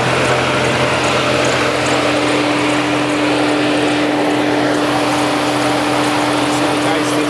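Mercedes-Benz C300 engine running at idle with cylinder 2 misfiring, the sign of a failing spark plug on that cylinder; a steady higher tone joins the running sound about one and a half seconds in.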